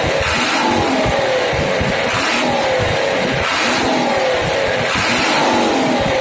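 Hino FM 260 JD truck's diesel engine being revved again and again, each throttle blip falling back in pitch, about once every second and a half.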